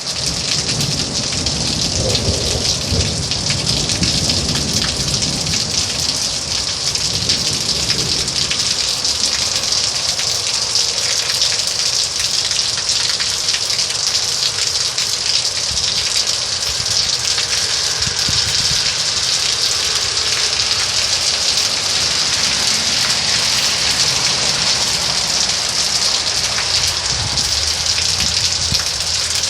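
Steady, heavy rainfall: a dense, even hiss of falling rain. Low rumbling sits under it for the first several seconds and again near the end.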